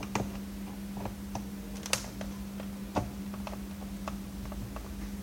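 Scattered light clicks and taps of a screwdriver and hands working on a monitor's plastic casing, a few sharp ones among softer ones. A steady low hum runs underneath.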